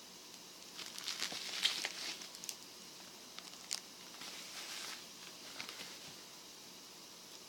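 Close handling noise: crinkly rustling with a scatter of sharp clicks and taps, in two or three short bursts about a second, three and a half seconds and five seconds in.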